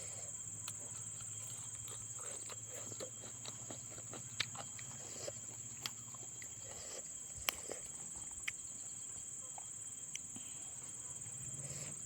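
Scattered sharp clicks and smacks of someone eating a fish head, over a steady high-pitched chirring of crickets.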